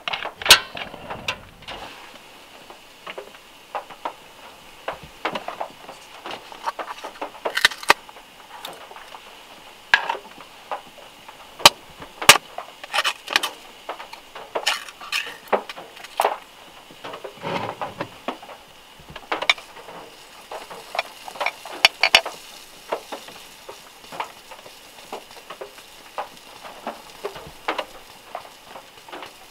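Irregular clicks, taps and clinks of a glass instant-coffee jar, its metal lid and a ceramic mug being handled, as the jar is opened and coffee is tipped into the mug. Underneath is a soft steady hiss of rain, with scattered drops from the trees striking the car roof.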